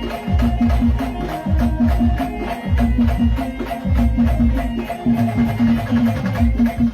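Instrumental folk music with a steady drum beat and shaken rattle percussion over a repeating melody.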